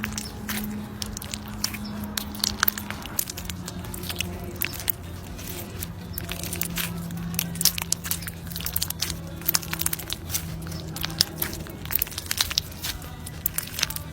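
Close-up ASMR crunching and cracking of chocolate balls: many sharp, crisp cracks, dense throughout, over soft background music with low held notes.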